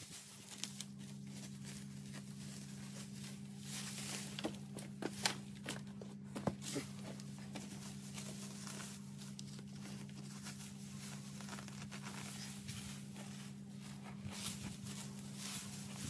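Clumps of dry grass and weeds being pulled out by hand, roots tearing and dry stems crackling and rustling in short irregular snaps, over a steady low hum.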